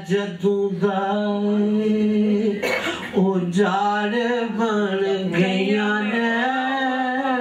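A man singing unaccompanied into a microphone, holding long, wavering notes, with a quick breath about three seconds in.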